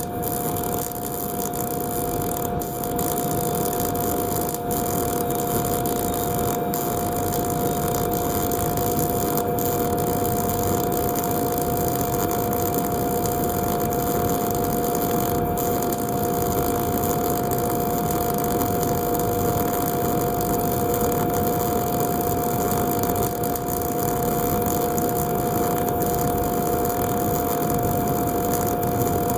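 MIG welding arc running a root pass on a horizontal groove joint, a steady crackling hiss without a break, with a steady hum underneath.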